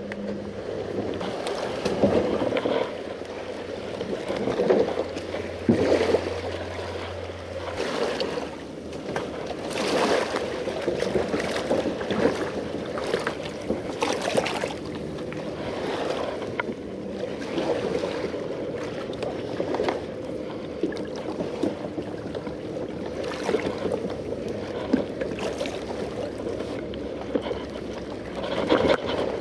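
Splashing footsteps of someone wading through shallow water, a stroke every second or two, while a Hobie Pro Angler 12 kayak is pulled along by its handle.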